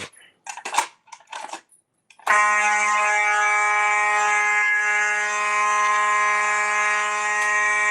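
A few short clattery knocks, then about two seconds in a fire alarm horn starts sounding: a loud, steady, unbroken buzzing tone that holds without pulsing for the rest of the time.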